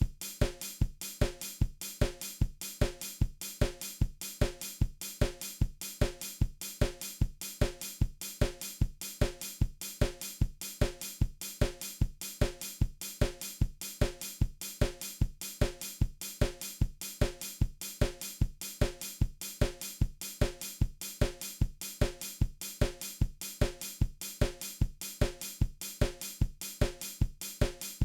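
A programmed drum beat, with kick, snare, hi-hat and cymbal repeating at a perfectly even tempo.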